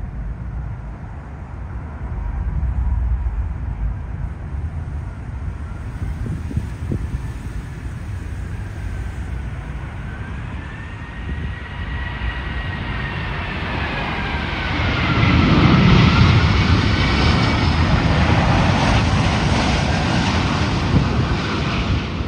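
British Airways Airbus A380 with Rolls-Royce Trent 900 engines on final approach, passing low overhead. Engine whine slides up and down in pitch as the jet closes in. The rumble grows loud about fifteen seconds in and holds as it goes over.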